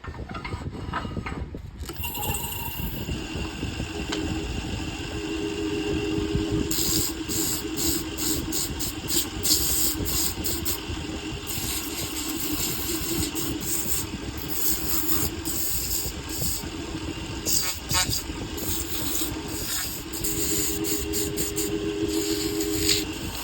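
Wood lathe motor running with a steady hum, while a tool works the spinning wood in repeated short scraping strokes.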